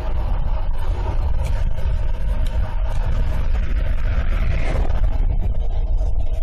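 Wind buffeting the microphone on an electric bike riding at speed, a steady low rumble with a faint steady tone underneath.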